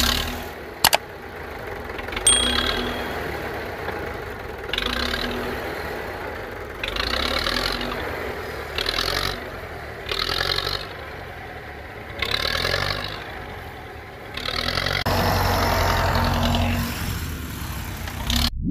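A motor running, swelling and easing back every one to two seconds, with a sharp click about a second in.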